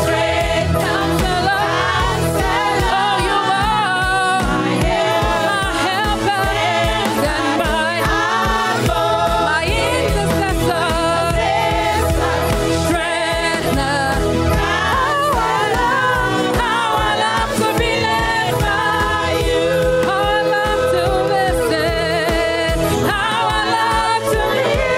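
Live gospel worship song: a woman sings lead into a microphone over backing music with a steady beat.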